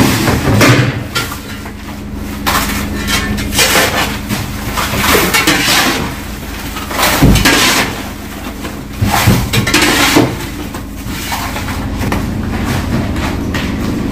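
Workers scooping iced fish out of a fishing boat's fish hold: irregular clattering knocks and clinks of ice and fish being shovelled, over a steady low hum.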